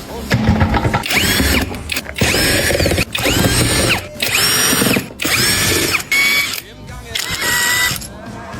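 Power wrench run in repeated bursts of up to about a second, about seven times, spinning nuts off the chassis parts. Its whine rises as it spins up and drops as it stops.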